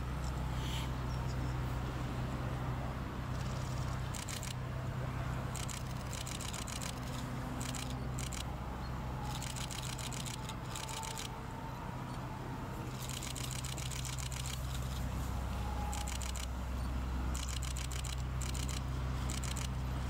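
Camera shutters firing in rapid bursts, about eight runs of fast, evenly spaced clicks, each lasting half a second to a second and a half, over a steady low hum.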